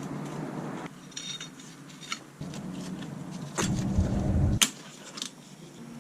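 Small metal engine parts clinking as they are handled, with a few separate sharp clicks and a louder stretch of clatter lasting about a second, around three and a half seconds in.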